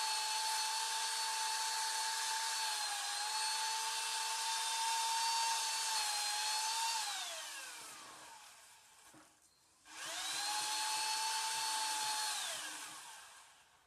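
Electric power-tool motor running free at steady speed with a high-pitched whine, coasting down after about seven seconds, then triggered again about ten seconds in and winding down once more near the end.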